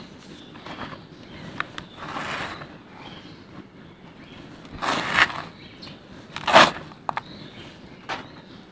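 Handfuls of dry, powdery red dirt being scooped up and let fall back into a container, giving gritty rushing crumbles about two, five and six and a half seconds in, the last the loudest, with a few small sharp clicks of grit between them.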